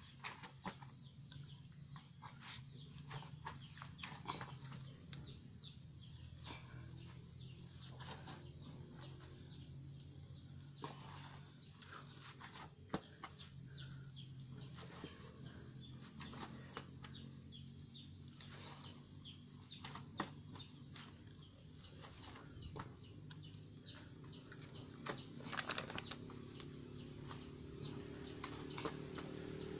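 Scattered soft taps and knocks as hands knead rice dough on a metal tray. Under them run a faint steady high hiss and a low hum, with a brief cluster of louder knocks near the end.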